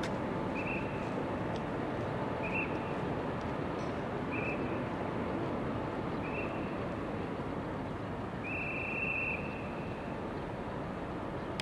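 Sumitomo CT-15000 crawler crane slewing its upper works, with a steady machine rumble throughout. A short, high beep repeats about every two seconds over it, and the last beep is longer.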